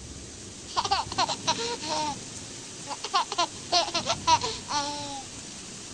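A baby laughing and babbling in three short bouts of high, rising and falling squeals, starting about a second in.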